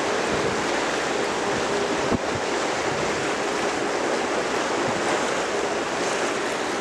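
Steady rushing noise of wind on the microphone and water aboard a river boat under way, with one short knock about two seconds in.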